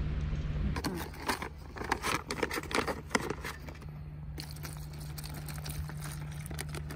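Plastic crinkling and crackling as an instant-rice pouch and a plastic water bottle are handled and water is poured into the pouch. There is a dense run of crackles for about three seconds, then quieter handling over a steady low hum.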